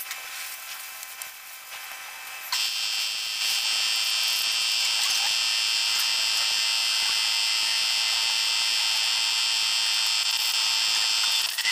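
A loud, steady high-pitched electric buzz, made of several fixed tones, that starts abruptly about two and a half seconds in and holds at an even level.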